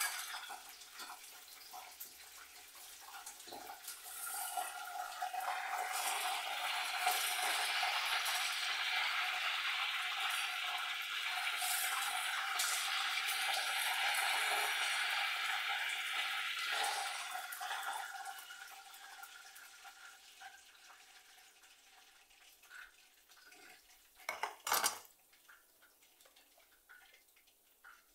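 Washing up at a kitchen sink: pots, pans and cutlery clink and clatter while the tap runs for about ten seconds in the middle, then shuts off. A sharp knock comes near the end.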